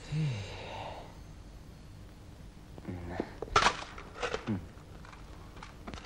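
A man's short breathy vocal sounds, gasps and sighs, mixed with a few sharp clicks; the loudest click comes about three and a half seconds in, and others follow with short falling sounds.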